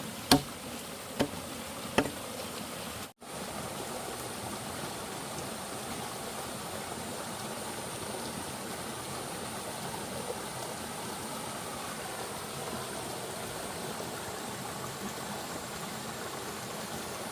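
Three sharp strikes of a tool on wood, evenly spaced, in the first two seconds. After a short break, a steady rushing of running water from a stream, with a thin high steady insect whine above it.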